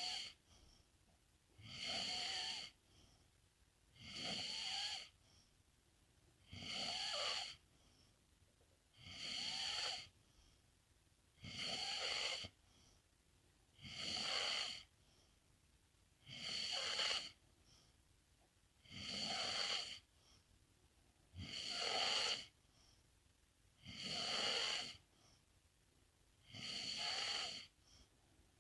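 A sleeping pet snoring in a slow, even rhythm: one snore about every two and a half seconds, each lasting about a second, with quiet breaths between.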